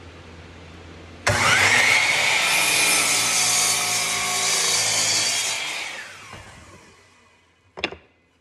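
Bosch sliding miter saw starting up about a second in with a rising whine and crosscutting a planed maple board to length, then the blade spinning down and fading away. A single short click near the end.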